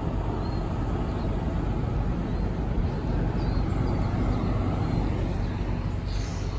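A large diesel engine idling steadily with a deep, even hum, with a brief hiss about six seconds in.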